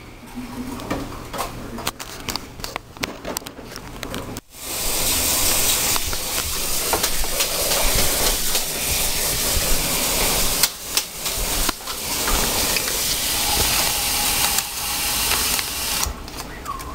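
A few light knocks and clatters, then water suddenly starts running hard from a kitchen tap about four and a half seconds in, a steady rushing hiss that breaks off briefly a few times and stops near the end, as a cup is filled with water for Jello.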